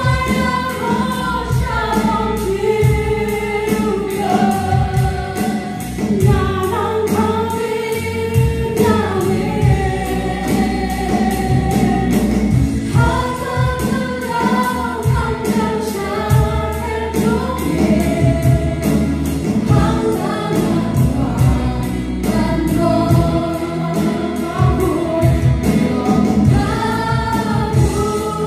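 Live gospel praise-and-worship song: a group of singers, mostly women's voices, with drum kit, acoustic guitar and bass guitar, over a steady beat.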